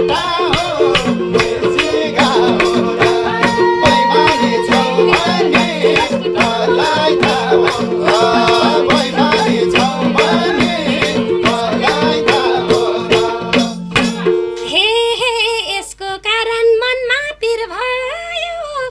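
Nepali live dohori folk music: madal drums beating a quick rhythm, harmonium drone and sarangi under a man's singing. The music stops about fourteen seconds in, and voices talk and laugh.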